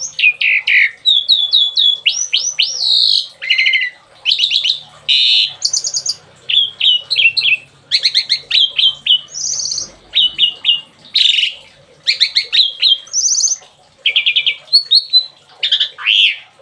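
A suren songbird sings a rapid, varied string of short phrases: sharp repeated notes, quick trills and downslurred whistles, one after another with short gaps. This is the bursting 'tembakan' song used as masteran for training caged songbirds.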